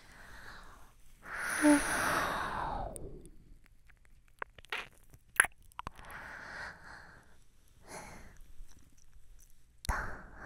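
Breathing close into a binaural microphone's ear: a long, loud exhale about a second and a half in, then softer breaths, with scattered wet mouth clicks.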